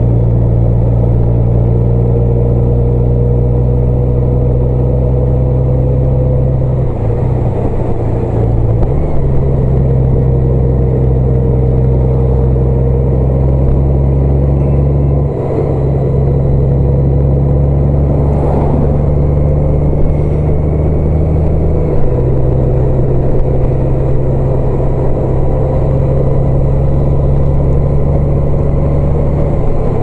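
A car engine running steadily while the car drives along a road, with continuous road noise. The low engine note shifts in steps a few times.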